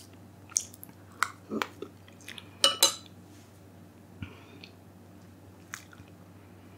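Close eating sounds from spoonfuls out of a ceramic mug: a few short wet mouth smacks and chews, mixed with the metal spoon clinking against the mug. They come in a cluster over the first three seconds, then only a couple of isolated clicks.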